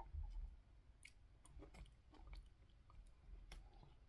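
Quiet eating sounds: faint chewing and a few soft, scattered clicks as a fork picks at cut mango and pineapple in a clear plastic container.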